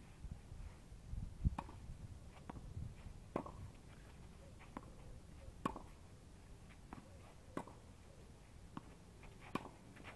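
Tennis rally on a clay court: sharp racket hits on the ball about every two seconds, with fainter ball bounces between them.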